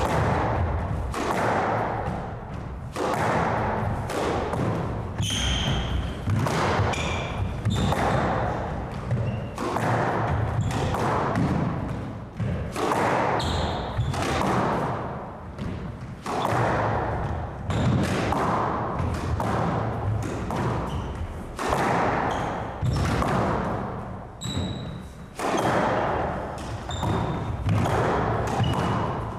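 Squash rally: the hard rubber ball is struck by racquets and thuds off the court walls every half second to a second. Short high squeaks from players' shoes on the hardwood floor come in between.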